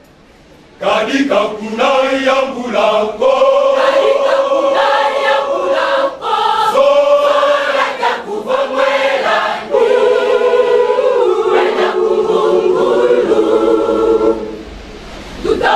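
A choir of many voices singing together in sustained, stepping phrases. A brief pause about a second in and a softer stretch near the end.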